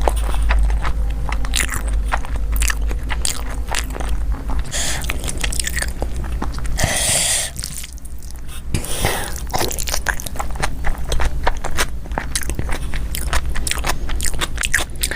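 Close-miked mouth sounds of a person eating: biting and chewing with irregular crisp crunches and wet clicks.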